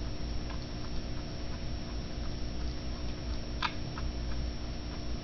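A kitten chewing and licking raw beef cubes in a ceramic bowl: faint, irregular small clicks, with one sharper click about three and a half seconds in, over a steady low hum.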